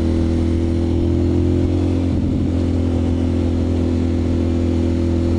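2001 Ducati Monster M600's air-cooled L-twin engine running at a steady cruise, its note holding one even pitch.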